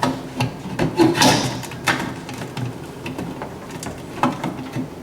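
Irregular metal knocks, clicks and scraping as a replacement magnetron is set into place in a GE microwave's chassis. The loudest knocks come about a second in and near four seconds.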